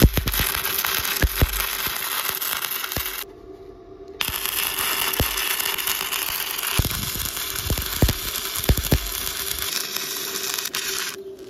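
Electric welding arc from a Bestarc MIG145 multi-process welder, crackling and sizzling with sharp spatter pops as a bead is laid. The arc breaks off about three seconds in, strikes again about a second later, and runs until near the end.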